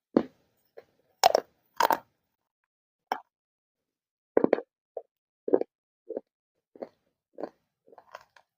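Crunchy dry clay crunching in a series of short, separate crunches, about a dozen in all, some of them doubled.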